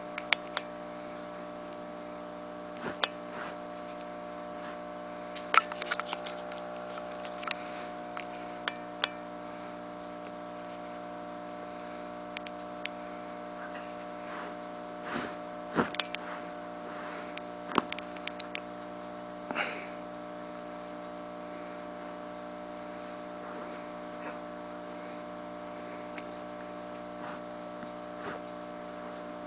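Steady electrical hum made of several held tones. Over it come a dozen or so short, scattered clicks and scuffs as a cat plays and bites at a person's hand.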